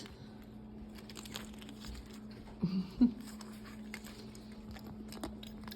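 Light clicks and taps from small objects being handled, over a steady hum. A brief voice sound comes about three seconds in.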